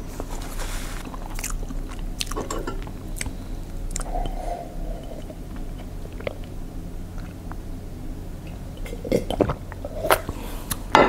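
Close-miked chewing and biting of a mouthful of food, with soft crunching clicks. Near the end come swallows or sips as she drinks from a mug.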